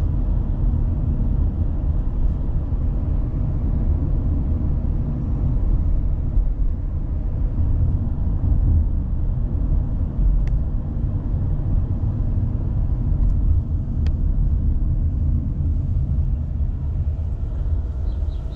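Steady low rumble of a moving taxi, heard from inside the cabin: engine and tyre noise while driving along a city road, with a few faint clicks.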